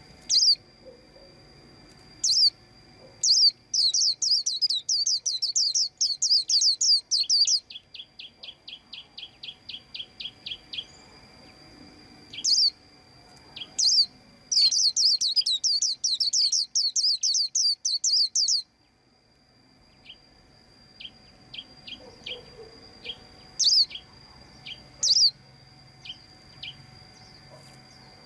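White-eye chirping. Two long fast runs of high chirps are broken by a row of quicker, lower ticks and a few single calls, and scattered short calls follow in the last third.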